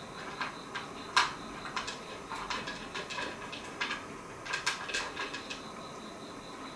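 Cat eating from a pet bowl: an irregular run of small crunches and clicks of food and teeth against the bowl, the sharpest about a second in.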